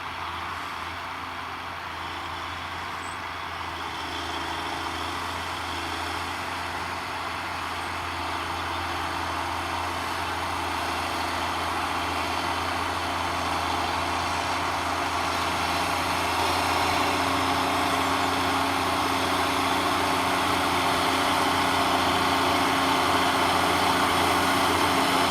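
New Holland tractor's diesel engine running steadily, growing gradually louder.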